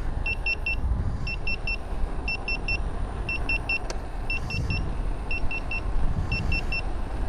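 Begode Mten 5 electric unicycle's speed alarm beeping in quick groups of three, about one group a second, warning of high speed as it runs at around 40 km/h. Under it is a steady low rumble of wind and tyre on asphalt.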